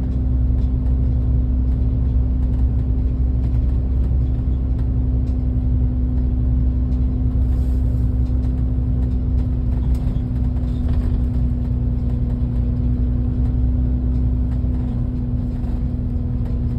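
Steady low rumble of a moving road vehicle heard from on board: engine and tyre noise with a constant hum running through it.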